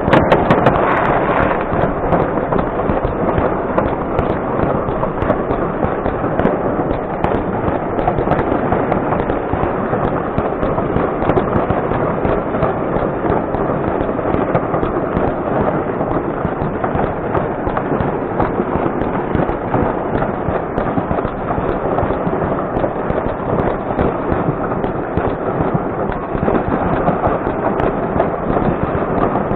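Fireworks going off without a break: a dense, continuous crackle of many overlapping bangs and pops, steady in loudness throughout.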